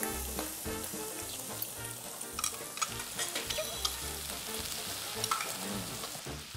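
Meat sizzling on a tabletop barbecue grill, a steady crackle with a few sharp clicks.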